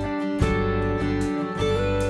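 Background music with acoustic guitar, a new chord coming in about a third of the way through.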